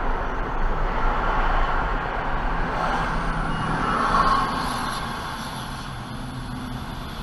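Car driving in traffic, heard from inside through a dash camera: a steady rush of road and engine noise that quietens a little about five seconds in.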